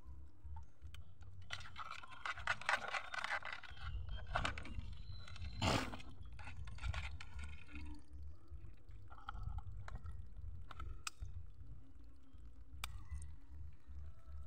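A nylon gill net being pulled by hand into a plastic bucket in shallow water while crabs are worked free of the mesh: irregular scraping and rustling with small splashes. One louder sudden burst comes near the middle, and a few sharp clicks later on.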